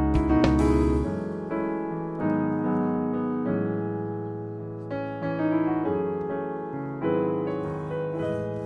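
Solo piano background music: single notes and chords struck and left to ring and fade. There are a few short, sharp noises in the first second.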